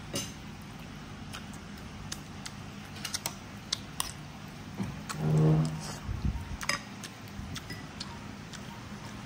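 Light clinks and taps of a ladle and spoon against a cooking pot and bowl while food is served at the table, with a short hummed "mmm" about five seconds in.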